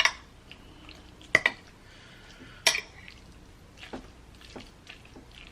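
A few sharp clicks and clacks of utensils against dishes as more food is served, two of them in quick succession about a second and a half in.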